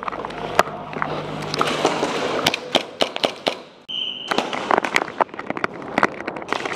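Airsoft guns firing in quick, irregular sharp cracks, with BBs smacking barriers and walls. About four seconds in the shooting drops out briefly under a short high beep.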